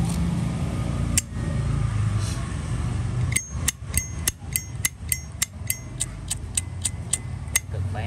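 Zippo Armor lighter with its thick-walled case, its hinged lid snapped open and shut again and again: a run of about fourteen sharp metallic clicks, about three a second, each with a short ring, after a single click about a second in.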